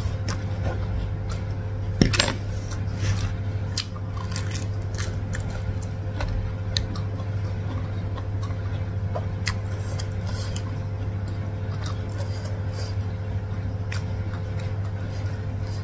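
Close-miked chewing of saucy instant noodles: soft wet clicks and smacks repeating, with a louder clink of a fork against the plate about two seconds in. A steady low hum sits underneath.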